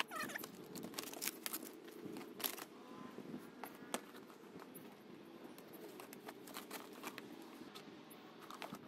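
Fluted plastic (coroplast) kayak sheets being folded and pressed flat into a wooden frame: scattered clicks, taps and crinkles, busiest in the first few seconds and sparser after.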